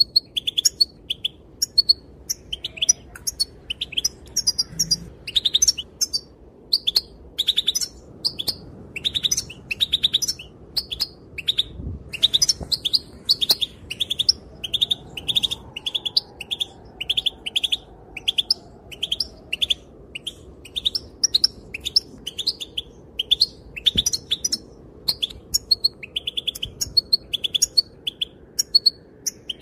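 Female European goldfinch calling: a steady string of short, high chirps, a few a second, with only brief pauses.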